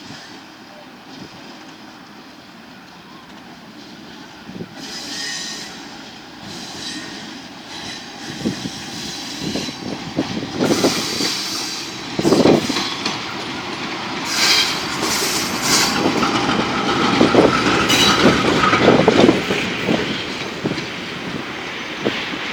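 Train of AK passenger carriages rounding a curve, growing louder as it comes closer, with the wheels clacking over rail joints. A thin, steady wheel squeal rises partway through.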